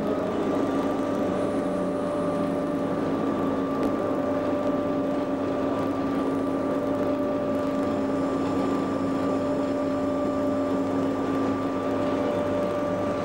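Inside the cab of Class 87 electric locomotive 87033 on the move: a steady hum with several held tones over the even running noise of the wheels on the track.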